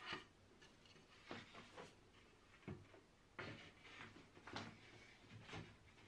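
Faint wooden knocks and clicks as pieces of an unfinished wooden frame are handled and fitted together during hand assembly with a screwdriver. There are about nine short taps and brief scrapes at uneven intervals.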